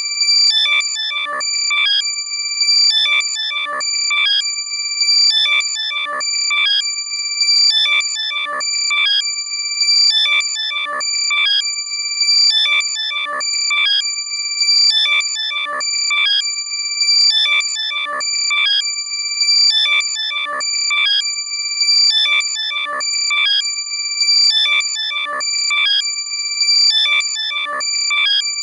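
Loud electronic alert sound made to locate a lost AirPod: sustained high beeping tones layered with quick falling chirps, in a pattern that repeats about every two seconds. It is compressed for loudness.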